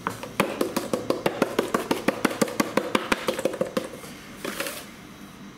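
Plastic shaker jar of garlic powder shaken hard over a bowl, its contents rattling in quick, even shakes, about five a second, that stop after roughly four seconds, followed by a short soft rustle.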